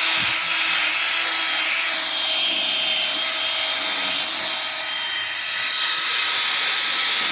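Electric drill running steadily, spinning a polishing/sanding pad against a plastic headlight lens: a continuous high motor whine over a rubbing hiss.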